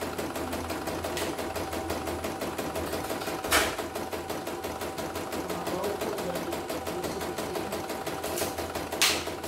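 CNY computerized embroidery machine stitching, its needle running in a fast, even rhythm. Two louder clacks come through, one a little after three seconds and one near the end.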